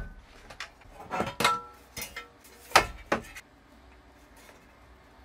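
Sheet-metal cover and metal chassis knocking and clinking as they are handled, a handful of sharp knocks in the first three and a half seconds, some with a short metallic ring, then quiet.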